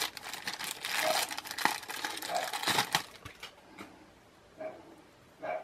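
Thin plastic bag crinkling and rustling as hands unwrap a USB cable from it, dense for about three seconds and then dying down. Two short high-pitched sounds follow near the end.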